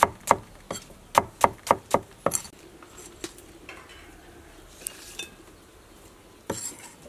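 Knife chopping shallots on a wooden cutting board: a run of sharp knocks, about four a second, that stops about two and a half seconds in. A few light clicks follow, then a short clatter near the end.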